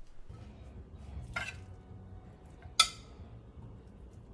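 A metal spatula clinking against a glass baking dish and a ceramic plate while food is dished out: two sharp clinks about a second and a half apart, the second louder and ringing briefly, over a low steady hum.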